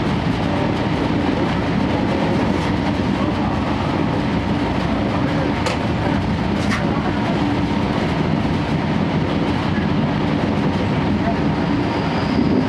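Running noise heard inside a 12-series passenger coach (SuHaFu 12) on the move: a steady rumble of wheels on rail under the drone of the car's own diesel generator engine. Two sharp clicks come about a second apart near the middle.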